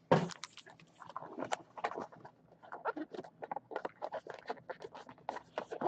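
Trading-card packs being opened and cards handled: a run of quick, irregular light clicks and taps.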